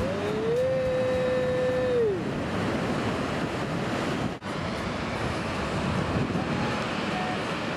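Surf breaking on a reef, a steady wash of waves with wind buffeting the microphone. A single held pitched tone sounds over it for about the first two seconds, rising in and falling away, and the sound cuts out for an instant about four seconds in.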